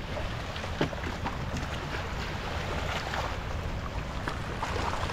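Wind buffeting the microphone over small river waves lapping at the bank, with scattered little splashes.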